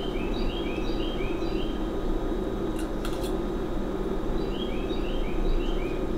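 A songbird sings a quick phrase of about four repeated two-note figures, then sings it again a few seconds later, over a steady low hum. There is a faint click about three seconds in.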